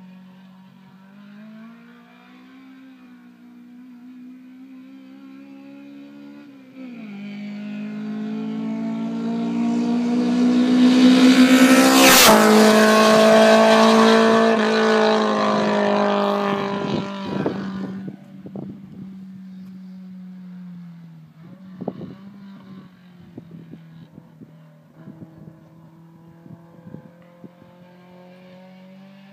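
Toyota AE86's four-cylinder 4A-GE 20-valve silvertop engine with high-compression pistons, running hard as the car approaches and passes at speed about twelve seconds in, its note rising and then dropping in pitch as it goes by. It then fades into the distance with a lower note and a scatter of sharp crackles, and the engine note climbs again near the end.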